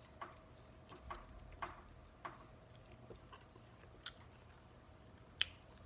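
Close-miked chewing of food: soft, wet mouth clicks and smacks every half second to second or so, the loudest near the end.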